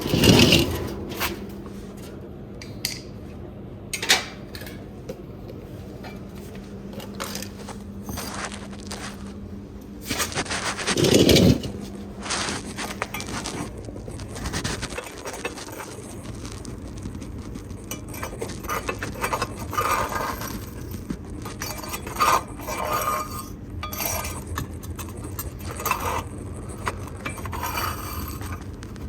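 Metal scraping and clinking, as of a shovel scraping wood ash out of a homemade fireplace: repeated light knocks and clinks, with a longer, louder scrape about eleven seconds in.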